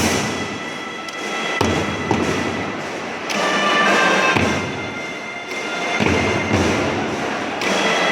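Primary-school marching drum band playing: heavy drum strikes land every second or two, under a sustained melody line.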